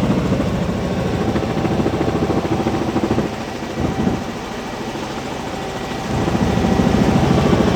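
Helicopter running steadily with a fast, even rotor chop; the sound drops for a few seconds in the middle, then comes back up.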